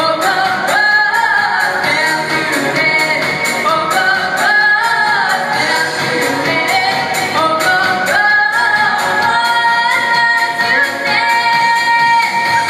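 A young girl singing a pop song in the Yakut language over an instrumental accompaniment, holding a long note near the end.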